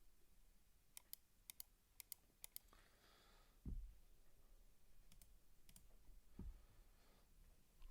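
Faint, sharp clicks in four quick pairs, then a soft rustle and a low thump, the loudest sound; a few more clicks and a second low thump follow.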